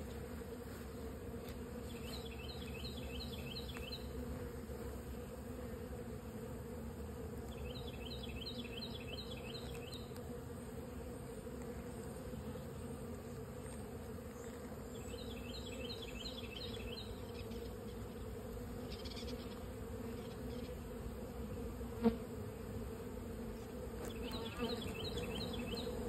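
Steady hum of many honeybees flying around the hive entrance. A single sharp knock stands out late on.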